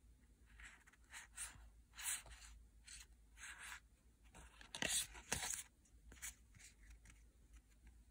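Yu-Gi-Oh! trading cards and their packaging being handled: a run of short, dry, irregular swishes and rustles, the loudest pair about five seconds in.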